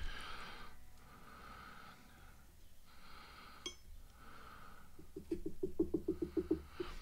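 Soft breathing close to the microphone, with a single light clink about halfway and a quick run of soft taps near the end.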